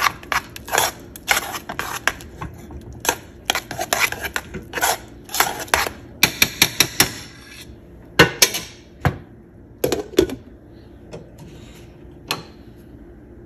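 Metal whisk stirring thick grits in an enamelled pot, scraping and clicking rapidly against the sides for about seven seconds, then a few separate knocks of metal on the pot.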